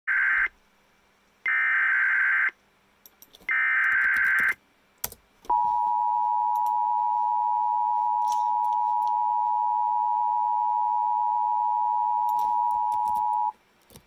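Emergency Alert System SAME header, three screeching digital data bursts about a second apart that encode a tornado warning, followed by the EAS two-tone attention signal held steady for about eight seconds.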